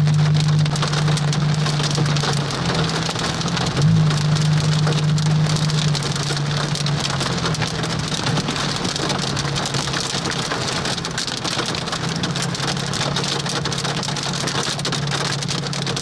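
Hail pelting a moving car's roof and windshield, heard from inside the car as a dense, steady patter of small hits. A steady low hum from the car runs underneath.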